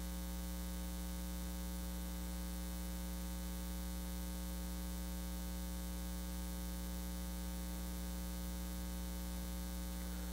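Steady electrical mains hum: a low, even buzz with a ladder of higher overtones, holding the same level without a break.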